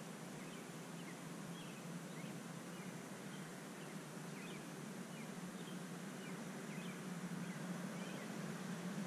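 Faint outdoor night ambience: a steady low hum under a hiss, with faint, short, high chirps from small animals scattered about once or twice a second.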